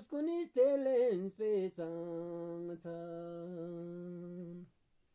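One voice singing a slow song in long, held notes with short breaks between phrases, stopping shortly before the end.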